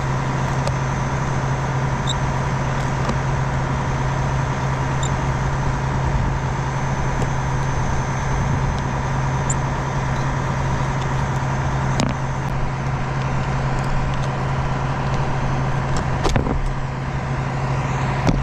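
Tractor engine running steadily at idle, with a constant hum and a faint steady whine, and a few sharp clicks or knocks about twelve and sixteen seconds in.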